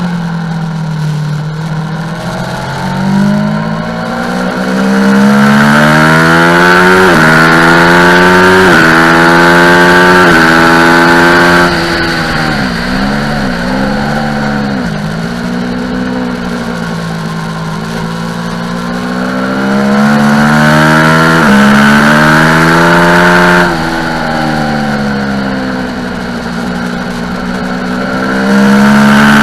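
Aprilia Tuono motorcycle engine accelerating hard up through the gears, the revs climbing and dropping sharply at each upshift. About halfway through it shifts down with quick throttle blips, then pulls up through the gears again, with another sharp drop in revs near the end.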